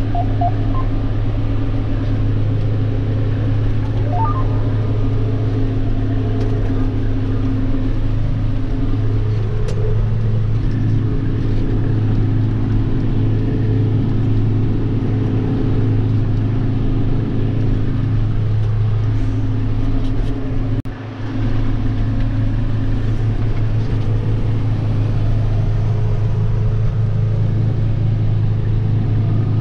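John Deere 7810 tractor's six-cylinder diesel running steadily under load while pulling a rotary cutter (bush hog) through weeds, heard from inside the cab as an even, deep drone. The drone dips briefly about two-thirds of the way through.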